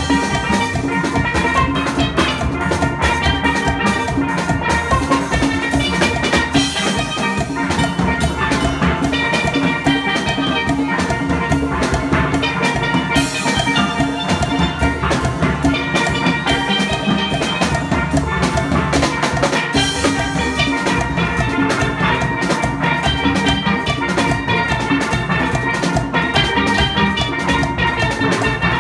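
Steel pan orchestra playing a medley: many steel pans ringing out a melody together over a steady, driving beat.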